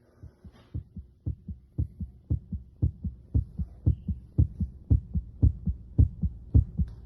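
Heart sounds: a regular lub-dub heartbeat of about two beats a second, starting faint and growing louder over the first couple of seconds.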